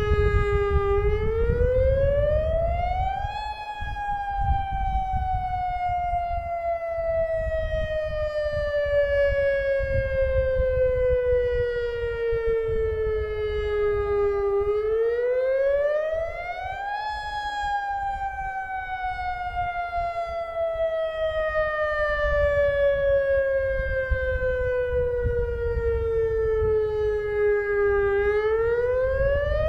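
Federal Signal Modulator 6048 electronic warning siren sounding a lahar warning test. Its tone sweeps up quickly over a couple of seconds, then slides slowly down over about eleven seconds, and the cycle starts again twice. A low rumble runs underneath.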